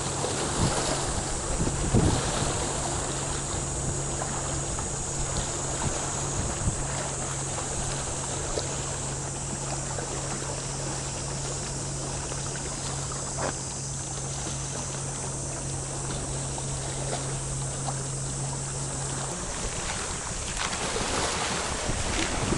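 Wind buffeting the microphone over sea water washing along the shore, with a few brief splashes or knocks. A steady low motor hum runs under it and cuts off near the end.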